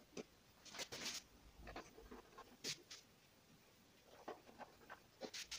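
Faint, scattered scrapes and clicks of hands handling a disassembled LED TV panel and its parts, with a cluster of them near the end.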